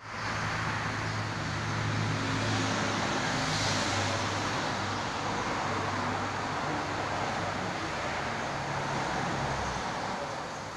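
Steady low hum of a running engine over a background of workshop noise.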